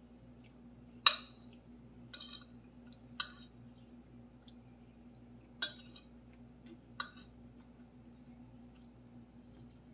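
Metal spoon and fork clinking against a plate while eating fried rice: five sharp clinks, the loudest about a second in, with faint small ticks between. A faint steady hum runs underneath.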